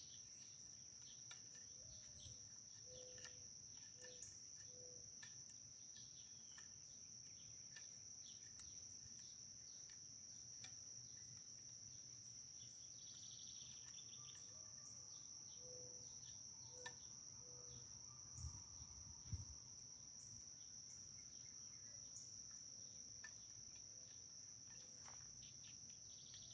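Insects chirring steadily in a continuous high trill, faint under the quiet. A few short faint distant calls come through, heard as dogs or coyotes, and there are a couple of soft knocks about two-thirds of the way through.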